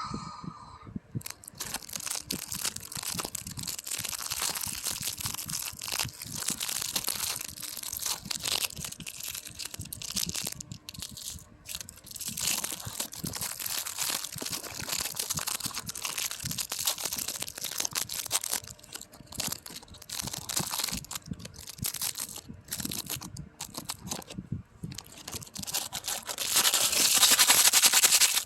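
ASMR rustling: something crinkly is handled and crumpled close to the microphone in an irregular stream of crackles. Near the end it grows denser and louder for about two seconds.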